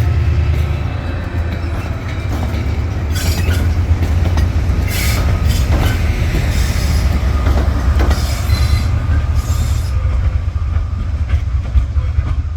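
Train moving past with a steady low rumble, and the wheels squealing on and off for several seconds from about three seconds in, with some clicking over the rail joints.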